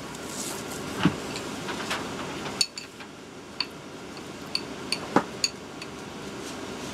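Scattered light knocks and several short, ringing clinks of small hard objects over a steady background hum, which drops noticeably about a third of the way in.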